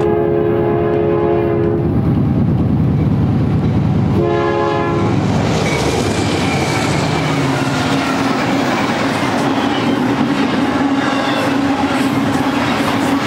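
Multi-chime horn of a BNSF diesel freight locomotive: one blast ending about two seconds in, then a short blast about four seconds in. The lead locomotives then pass close with a loud engine drone and a steady hum, followed by the double-stack container cars' wheels rolling over the rails.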